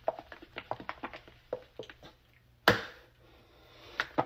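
Hands handling small kitchen items at a counter: a quick run of light taps and clicks, then one sharp knock a little over halfway through, and a few more taps near the end.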